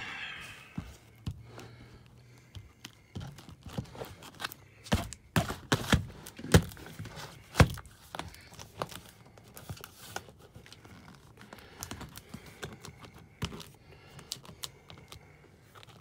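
Irregular clicks, knocks and rustling as a 4-inch pleated media filter and its gasketed access door are handled and fitted back into an air handler's filter cabinet. Two sharper knocks a little past the middle are the loudest.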